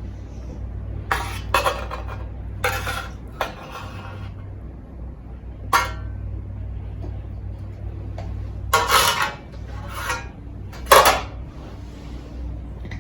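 Aluminium mess tin and cutlery being handled during camp cooking: a series of irregular metallic clinks and clatters, loudest about nine and eleven seconds in, over a steady low hum.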